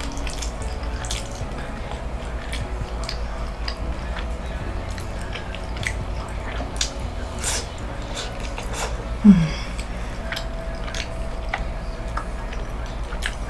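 Close-miked chewing of a taco: scattered wet mouth clicks and smacks over a low rumble. A short low falling sound about nine seconds in is the loudest moment.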